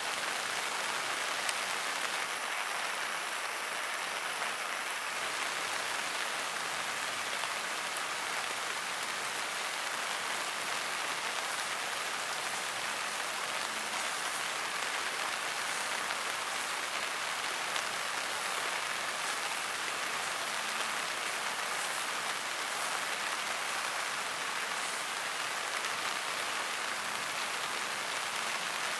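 Steady rain falling, an even hiss with no pauses.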